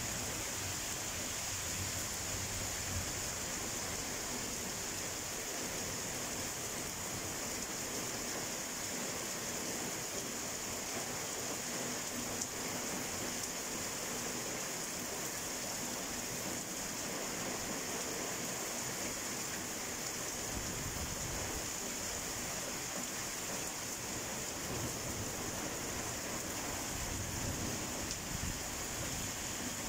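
Rain pouring steadily in a thunderstorm, an even, unbroken hiss.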